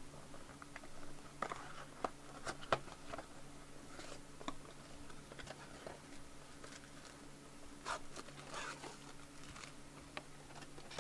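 Sealed foil trading-card packs being handled and stacked: faint crinkling of the wrappers with scattered light taps and clicks, over a steady low hum.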